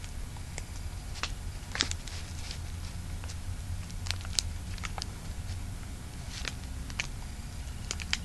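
Paper and plastic wrapping of a firecracker brick crinkling and clicking in scattered sharp bits as it is handled, over a low steady hum.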